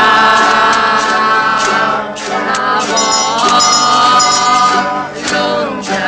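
Music: a voice singing long held notes over guitar accompaniment.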